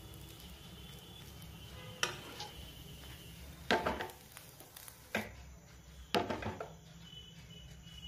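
Metal dosa tawa knocking and clattering on a gas stove burner: about four separate bursts of sharp clicks and rattles over a low background hum.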